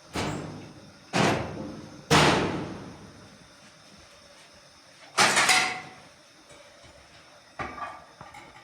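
A series of heavy bangs at irregular intervals, each ringing out and dying away within about a second. The loudest comes about two seconds in, and there is a quick double hit about five seconds in.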